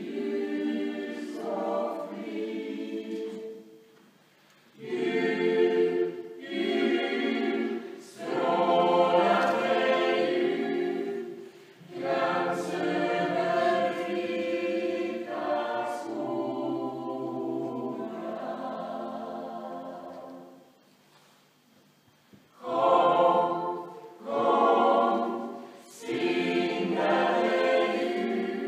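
Small mixed choir of men and women singing in phrases with short breathing gaps, and a longer pause about three-quarters of the way through before they sing on.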